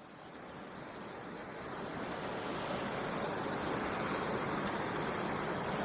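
Steady rushing of a small stream's flowing water, fading in over the first couple of seconds and then holding even.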